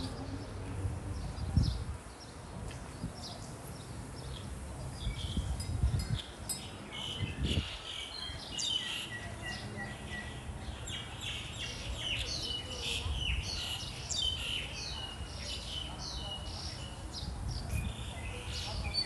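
Small birds chirping in many short, quick calls, busier in the second half, over a low steady rumble of outdoor background noise.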